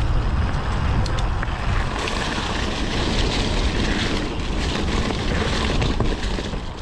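Mountain bike riding down a dirt trail: wind rushing and buffeting over the action camera's microphone, with the rolling noise of the tyres and a few light clicks and rattles from the bike.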